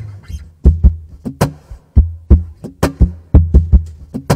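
Acoustic guitar played percussively between sung lines: a driving rhythm of sharp muted strums and hits, each with a heavy low thump from the guitar body.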